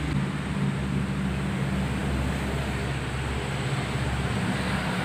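Steady low mechanical hum over an even background noise.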